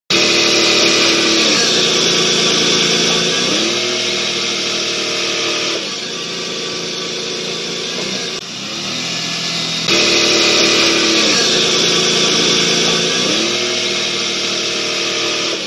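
Car engine running with a loud hiss. Its pitch drops and climbs back up twice, and the sequence starts over about ten seconds in.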